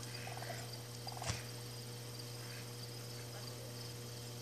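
Steady insect chirring over a low hum, with two brief low turkey calls in the first second and one sharp click a little over a second in.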